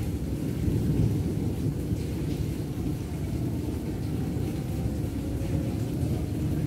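Thunder rumbling low and continuously, loudest about a second in, over a light hiss of rain.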